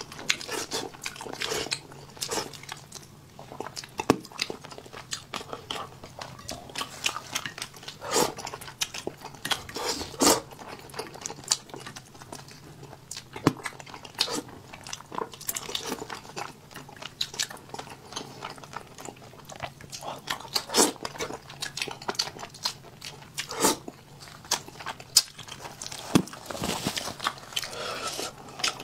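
A person chewing and biting food at the mouth, heard very close through a clip-on microphone: many short, irregular wet clicks and crunches.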